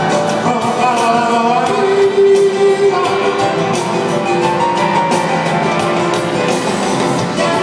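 Live band music with piano, electric guitar and drums keeping a steady beat, with singing over it, heard from a distance in a large arena.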